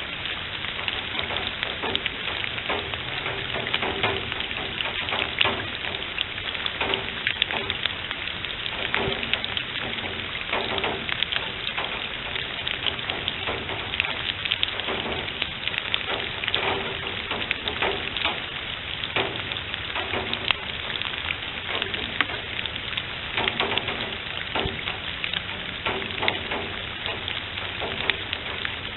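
Steady rain falling on pine-needle leaf litter and a pool of standing water, a dense, even spatter of drops.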